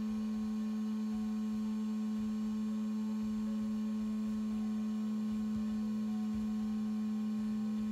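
A steady low tone held at one pitch, which starts and stops abruptly.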